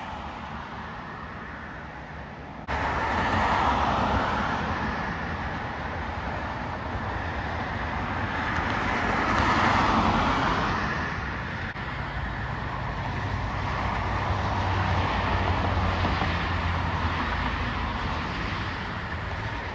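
Outdoor background noise like distant road traffic, a steady rumble and hiss that swells and fades slowly. It jumps suddenly louder about three seconds in.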